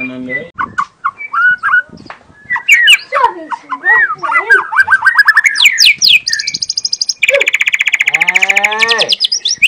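Young white-rumped shama (murai batu) singing a varied song of clear whistles and quick slurred phrases. About six seconds in it breaks into rapid-fire trills, a fast run of repeated notes lasting a few seconds.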